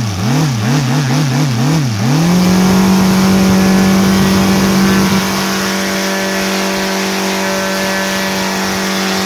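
OS Sirius 7 FR7-420 seven-cylinder four-stroke radial model engine, converted to gasoline with CDI ignition, driving a 24x10 propeller. It takes about five quick throttle blips, its pitch rising and falling each time, then is opened up and held at steady full throttle. The quick pickup on the blips shows good throttle response.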